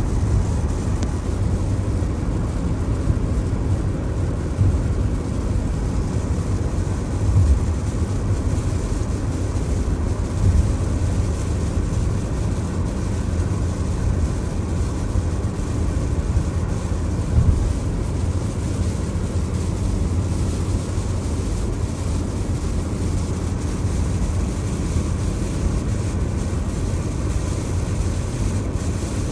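Steady low rumble of a car's tyres and road noise on a wet road, heard from inside the cabin.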